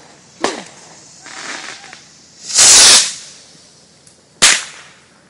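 Consumer fireworks going off: a sharp bang about half a second in, a very loud half-second blast near three seconds, and another sharp bang at about four and a half seconds, with a stretch of hiss between them.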